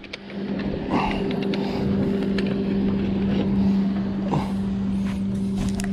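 Boat motor running with a steady hum, with a few light knocks on the boat.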